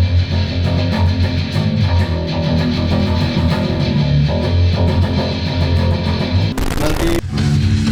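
Heavy metal music: a guitar riff over a heavy bass line. About six and a half seconds in, a half-second burst of noise cuts across it.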